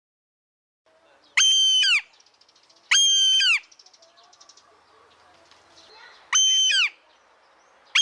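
Hawk screaming: three loud, high, piercing calls of about half a second each, spaced irregularly, each dropping in pitch at its end, with a fourth call starting at the very end. Faint softer chirps sound between the calls.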